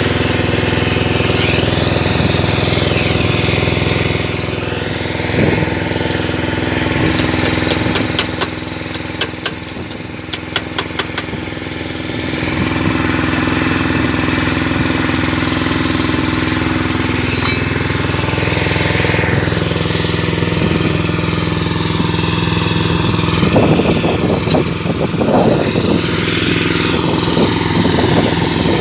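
An engine running steadily, with a run of rapid sharp crackles and clicks about a third of the way in and rougher, busier noise near the end.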